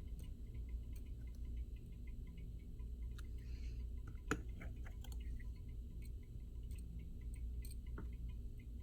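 Scattered light clicks and ticks of small tools and phone parts being handled on a repair bench, with one sharper click about four seconds in, over a steady low hum.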